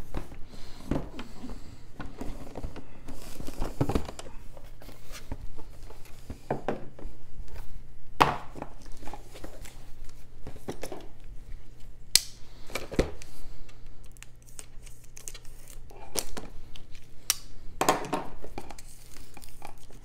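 A cardboard board-game box being opened and unpacked, with irregular knocks and taps as parts are lifted out and set on the table, along with plastic crinkling and cardboard scraping.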